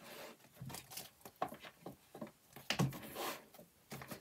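Plastic zip envelopes and paper budget sheets crinkling and rustling as they are handled and shifted in a ring-binder planner. Several short rustles come with a few sharper clicks.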